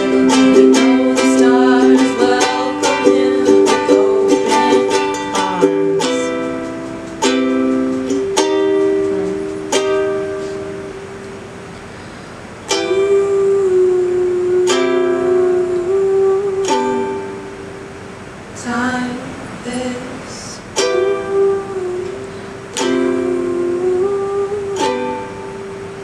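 Ukulele strummed: quick, even strumming for the first few seconds, then single chords struck every second or two and left to ring out.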